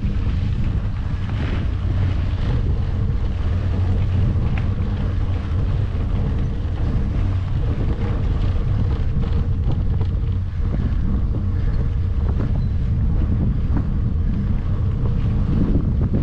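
Wind rushing over the microphone as a mountain bike rides a dirt flow trail, a steady low rumble with the tyres rolling on dirt and a few light clicks and rattles.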